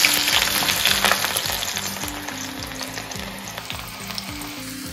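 Sliced onions frying in hot oil in a kadai: a loud sizzle from onions just dropped in, fading steadily as the oil settles.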